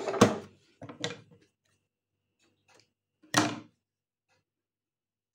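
Clunks and knocks from a domestic sewing machine being handled after stitching: a sharp knock just after the start, a softer one about a second in, and another sharp clunk about three and a half seconds in, with near silence between.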